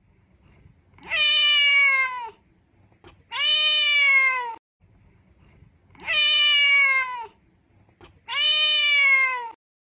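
A cat meowing four times at even intervals: long, drawn-out meows that each slide down in pitch at the end.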